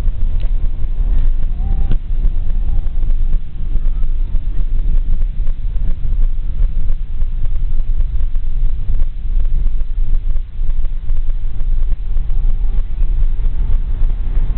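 Steady low rumble inside the cabin of a Volkswagen Touareg 3.0 V6 driving over a rough dirt and gravel track: engine and tyre noise on the loose surface.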